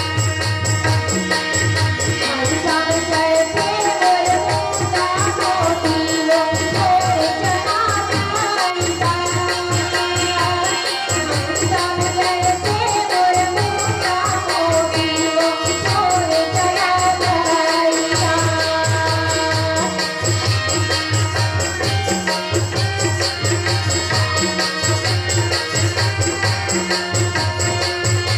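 Live Chhattisgarhi Gaura-Gauri folk music: a hand-played two-headed barrel drum beats a steady rhythm under a keyboard melody and singing, with a rattling jingle.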